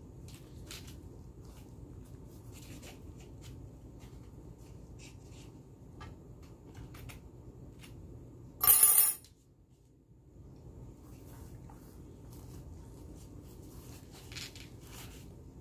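Hands folding and pressing a filled flour-tortilla wrap on a plate, giving soft, close crinkling and rustling. About halfway through, a loud, high-pitched ringing screech lasts about half a second.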